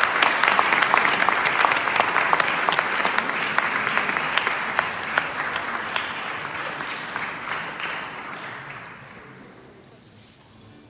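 Audience applauding, the clapping thinning out and dying away over about nine seconds.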